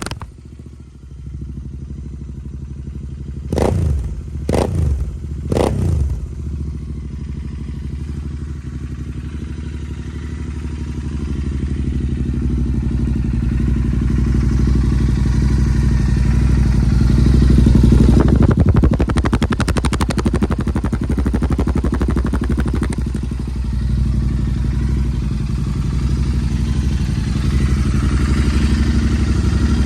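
Royal Enfield Interceptor 650's parallel-twin engine through its exhaust: idling, blipped three times in quick succession a few seconds in, then running steadily and gradually growing louder to a peak about two-thirds of the way through, with another quick rev near the end.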